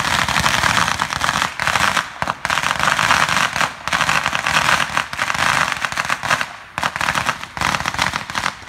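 A string of firecrackers going off in a rapid, continuous crackle of pops that thins out in the last second or two.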